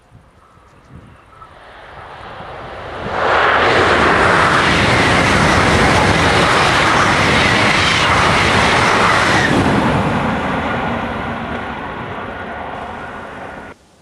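TGV Duplex double-deck high-speed train passing at speed: a rush of wheel and air noise that builds over about three seconds and stays loud for about six seconds as the train goes by. It then trails off and cuts off suddenly near the end.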